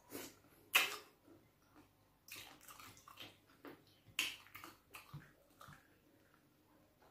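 Close-miked wet eating sounds of fufu with bitter leaf soup eaten by hand: mouth smacks and squelches, and fingers squishing through the soup in the bowl. It comes as a string of short wet bursts, the loudest about a second in and about four seconds in.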